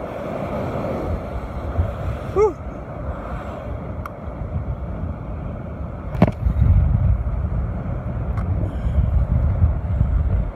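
Strong wind buffeting the microphone over surf washing against shore rocks, a steady low rumble. A brief squeak comes about two seconds in, and a sharp knock about six seconds in, after which the rumbling gets heavier.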